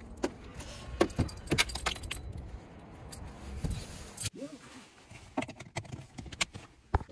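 Car keys jangling, with scattered sharp clicks and knocks from handling things in a car's driver's seat.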